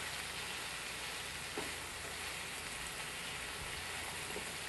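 Chicken strips frying in a pan, a steady sizzle as they finish cooking, with one light knock about one and a half seconds in.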